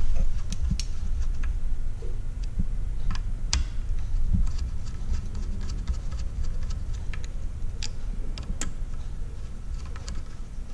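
Scattered light metallic ticks and clicks of a T-handle hex driver turning the small cap screws of scope rings, snugging them down without cranking, over a steady low rumble. The ticks come at irregular intervals, with a couple of sharper clicks about three and a half and eight and a half seconds in.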